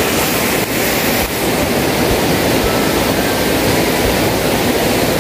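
Steady rushing noise of shallow sea water and wind at the shoreline, even throughout, with no clear separate events.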